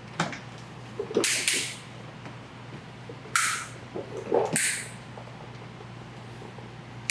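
Plastic grille tabs snapping into the bumper's clip locations as the sport grille is pushed in: a handful of sharp clicks and snaps with brief plastic scuffing, in clusters over the first five seconds.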